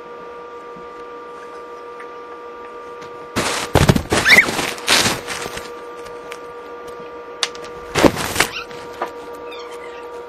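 Packaging foam rubbing and crackling against the camera in two bursts of scraping and squeaking, the first a little over three seconds in and lasting nearly two seconds, the second shorter about eight seconds in. A steady hum runs underneath.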